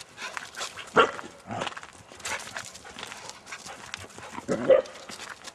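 Blue merle border collie barking: a sharp bark about a second in and a louder one near the end. Rustling and crackling run in between.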